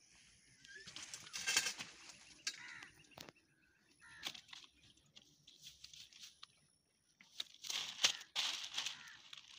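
Rustling and scuffling of grass, plastic bags and cloth with a few sharp knocks as a freshly caught fish is handled and laid on the ground. The loudest bursts of rustling come about a second and a half in and again near the end.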